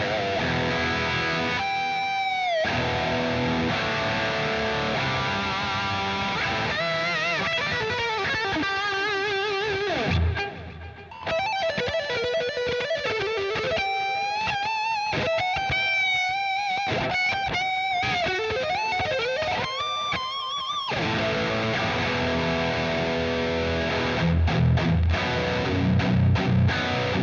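Cort X700 Duality II electric guitar with Fishman Fluence pickups, played through a high-gain amp simulator and slightly out of tune. It starts with low chugging riffs, moves to lead lines with held notes, bends and wide vibrato in the middle, and ends on palm-muted chugs with short stops.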